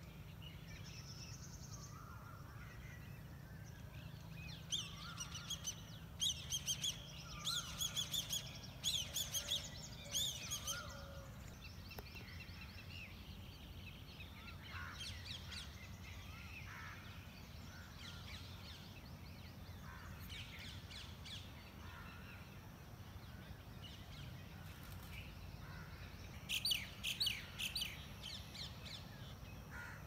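Early-morning birds calling and chirping. Rapid, high, sweeping chirps come in loud clusters from about five to eleven seconds in and again near the end, with scattered softer calls between, over a steady low background rumble.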